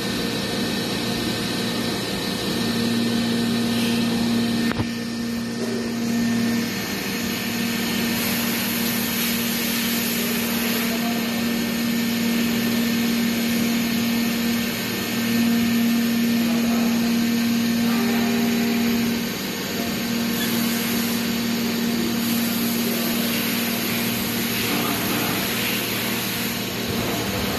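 Mikron VCE 500 vertical machining center running a program with its spindle turning: a steady machine hum with a strong steady tone that breaks off briefly and comes back several times.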